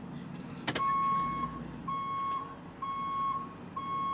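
2010 Ford F450's dashboard warning chime beeping steadily, about one half-second beep a second, starting just after a sharp click. It is the warning that sounds when the driver's door is opened with the key still in the ignition.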